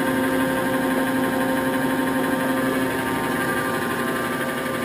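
1945 Blanchard 18-36 rotary surface grinder running, its 25 hp spindle motor turning the 18-inch segmented grinding wheel and drawing about 35 amps: a steady machine hum with several held tones.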